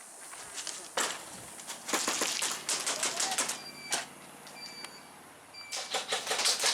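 Airsoft guns firing in rapid bursts of sharp clicking shots, with volleys about a second in, through the middle, and again near the end.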